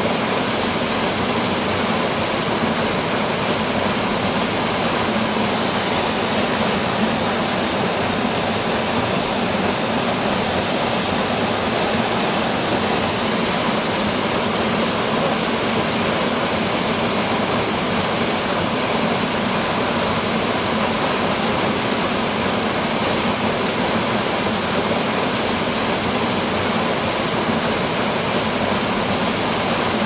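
Small mountain waterfall pouring into a shallow rocky pool: a steady, unbroken rush and splash of falling water.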